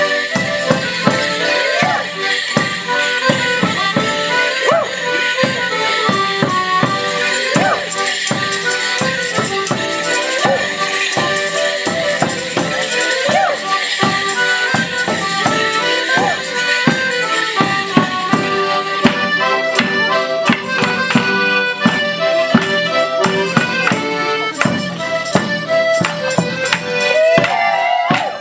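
Live folk band led by accordion playing a lively traditional dance tune for Border Morris dancers, with jingling and sharp, regular clacks of the dancers' sticks over it.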